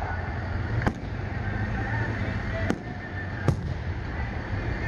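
Aerial fireworks shells bursting: three sharp bangs, about a second in, near three seconds, and again about half a second later, over a steady low rumble of background noise.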